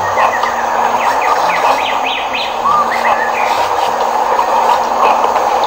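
Small birds chirping in quick, short notes over the steady rush of a stream; the chirping is busiest in the first three seconds or so.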